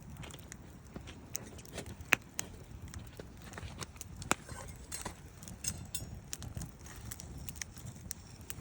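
Wood fire crackling in a Picogrill 398 fire pit: irregular sharp pops and snaps over a steady low rumble, the loudest pop about two seconds in.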